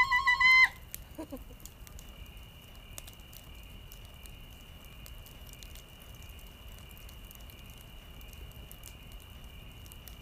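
Night campsite ambience: a steady, faint high chirring of crickets with scattered small crackles from a campfire. A loud trilling warble at a steady pitch cuts off within the first second.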